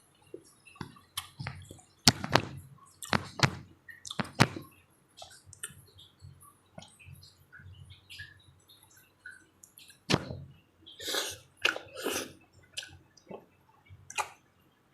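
Close-up eating sounds of a person chewing juicy papaya: irregular wet smacks and clicks of the mouth, loudest a few seconds in, with a cluster of longer wet sounds about ten to twelve seconds in.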